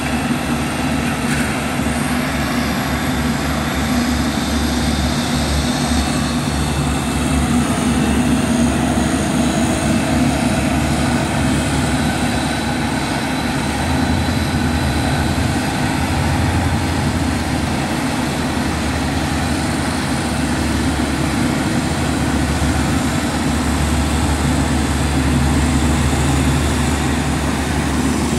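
Diesel engines of a BOMAG asphalt paver and the dump truck feeding it asphalt, running steadily as a low, continuous engine drone that swells at times.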